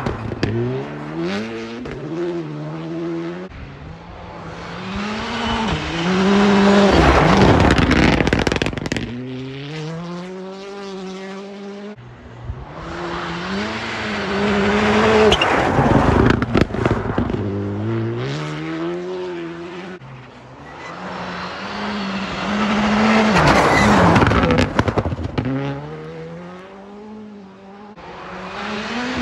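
Rally cars passing one after another on a snow-covered gravel stage, three times in all. Each engine revs hard and climbs through the gears in quick steps, swelling to its loudest as it goes by, with a hiss of tyres on snow.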